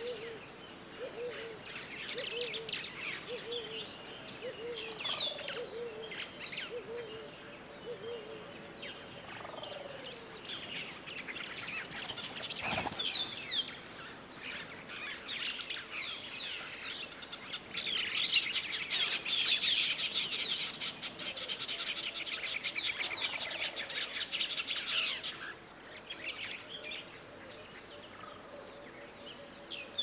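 Wild birds chirping and calling, busiest and loudest about two-thirds of the way through, over a high note pulsing at a steady pace. A low call repeats in the first several seconds, and a single sharp click comes a little before the middle.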